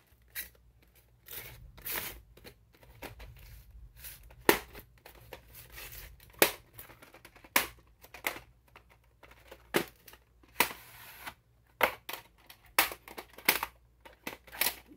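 A plastic VHS case and cassette being handled on a tile floor: a run of sharp clicks and knocks with rustling between them as the case is turned over and opened and the tape taken out.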